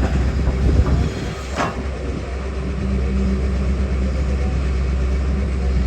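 Diesel engine of a JCB 3DX backhoe loader running steadily under work, with a single sharp clank about one and a half seconds in.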